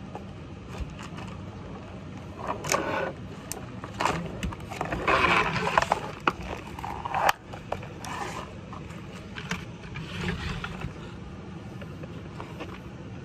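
Scraping, rustling and knocking of someone moving about on a hard floor close to the microphone, in several bursts with a sharp click partway through, over a steady low hum.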